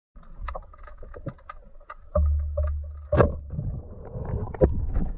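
Underwater audio of a speargun shot: scattered sharp clicks and a low rumble, then a single sharp crack about three seconds in as the speargun fires, followed by more low rumbling.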